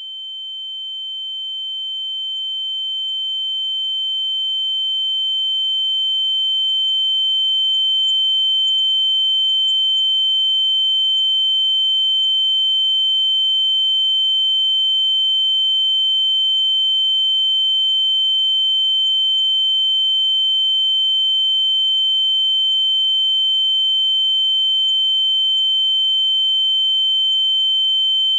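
Ear-ringing (tinnitus) sound effect: a steady, high-pitched pure tone with a much fainter lower tone beneath it. It swells in over the first several seconds and then holds unchanged.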